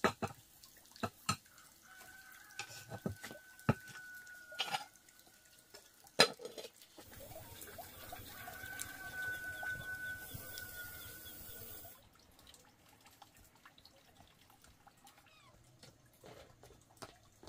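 Open wood fire crackling under a cooking pot, with sharp irregular pops and cracks through the first half. A soft steady hiss follows for several seconds, then it drops quieter.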